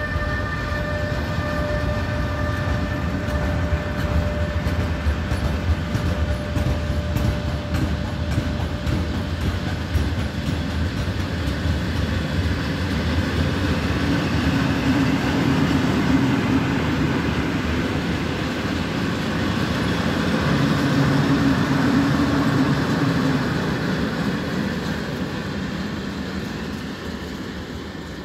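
Freight train of sliding-tarpaulin wagons rolling past as it pulls out of a station, with a heavy steady rumble and wheels clicking over the rail joints. It grows louder in the middle, then fades over the last few seconds as the train draws away.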